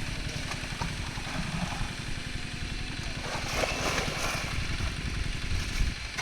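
Small engine running steadily with a fast, even low chugging. There is a brief rush of hiss about three and a half seconds in.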